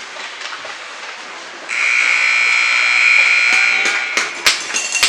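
Ice-arena buzzer sounding one loud, steady, high tone for about two and a half seconds, starting just under two seconds in, over rink noise; sharp knocks and clatter follow once it stops.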